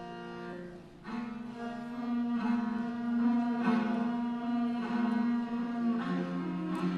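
Music on a low bowed string instrument, playing long held notes over a steady drone. It grows louder about a second in.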